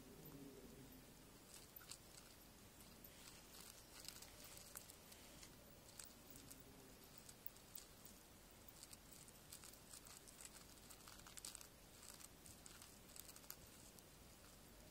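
Faint, irregular scratching and crunching of sand and grit as a scarab beetle digs its burrow.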